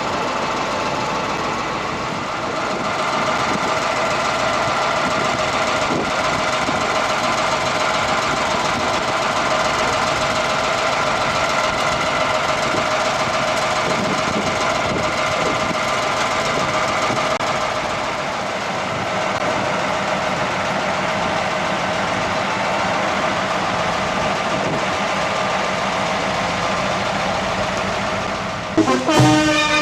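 Crane truck's engine running steadily while it powers the boom hoisting a statue, with a steady whine held over the engine noise. Brass band music starts near the end.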